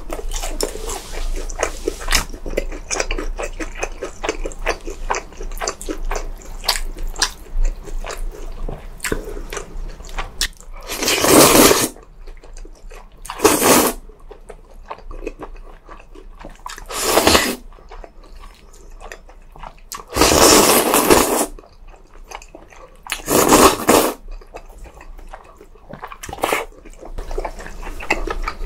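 Eating sounds: chewing with many small wet clicks, then, from about eleven seconds in, about five loud slurps of noodles, each a second or so long.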